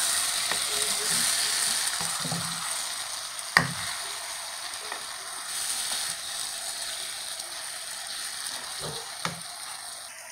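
Stuffed tinda and masala sizzling in a wok as a wooden spatula stirs them, with several knocks of the spatula against the pan, the loudest about three and a half seconds in. The sizzle gradually dies down.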